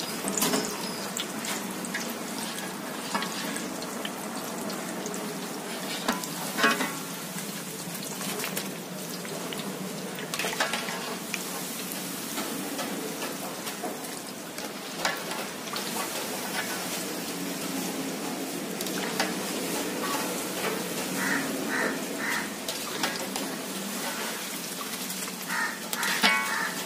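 Mathri dough pieces deep-frying in hot oil in an iron kadai: a steady sizzle and bubbling. Now and then a wire-mesh skimmer scrapes and clinks against the pan as the pieces are stirred.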